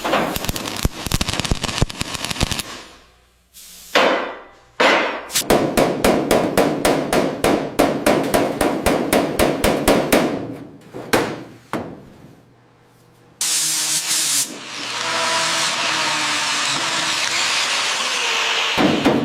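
Rapid hammer strikes, several a second, in runs with short pauses. Near the end they give way to several seconds of steady hissing noise with a faint whine.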